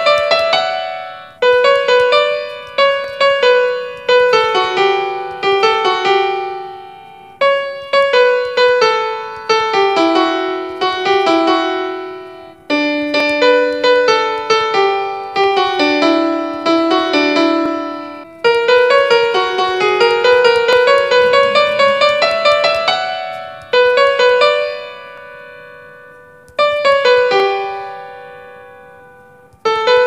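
Background music: a solo piano melody of struck notes in short phrases, each phrase ringing and fading before the next begins.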